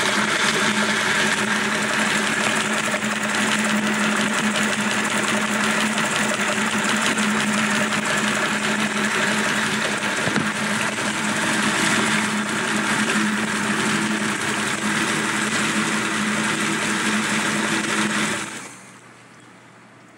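Nissan L-series straight-six with a home-built crossflow head running with its rocker cover off, the rocker arms and valve springs working in the open: a loud, steady running noise with a constant low hum. Near the end the sound falls away within about half a second as the engine stops.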